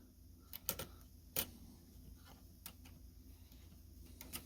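A few faint, light clicks at irregular intervals, over a low background hum.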